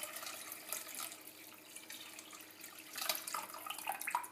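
Water pouring in a steady stream from a glass jug into a stainless steel pot of liquid soup base, splashing into the broth, louder about three seconds in and stopping near the end.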